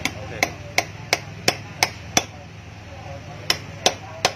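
Hammer striking the steel hub of a truck wheel: seven sharp blows at about three a second, a pause of about a second, then three more.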